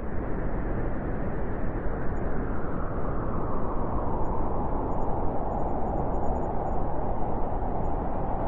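Blizzard wind: a steady, dense rush of wind noise with no distinct gusts, and a higher, whistling band that grows stronger in the second half.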